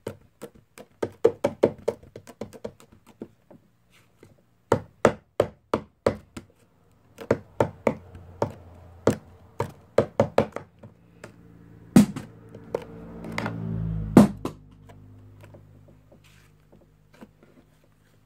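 A run of sharp taps and knocks in quick clusters, with a low steady hum joining about seven seconds in and dying away near the end.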